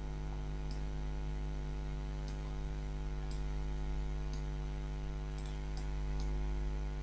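Steady electrical mains hum, a stack of constant tones on the microphone line, with a few faint, short clicks scattered through it.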